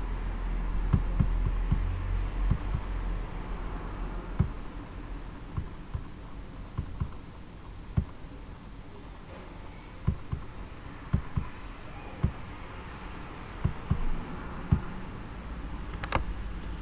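Steady low hum of the recording background with irregular soft low thumps scattered through it, and one sharper click near the end.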